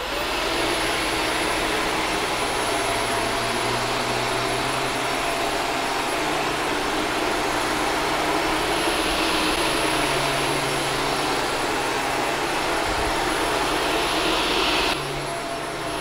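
Shark Stratos upright vacuum switching on, its motor spinning up over the first second, then running steadily with a thin high whine as it is pushed over carpet picking up loose dog hair; a little quieter about a second before the end.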